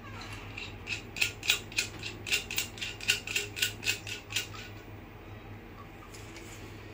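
Metal parts of a boom-stand microscope arm clicking as they are worked by hand: a run of about fourteen evenly spaced sharp clicks, about four a second, starting about a second in and stopping after about three and a half seconds.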